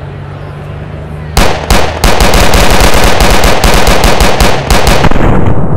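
Simulated gunfire: police handguns firing many shots in quick succession, several a second, starting about a second and a half in and stopping just before the end. Before the shooting, a low steady hum.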